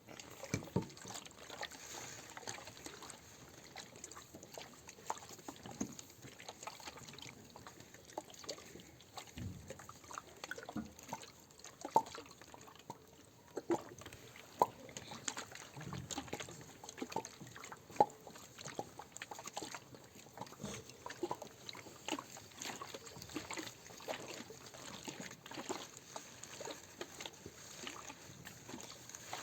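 Water sounds imitated with classroom materials: a soft trickle with irregular small drip-like plinks, some louder than others.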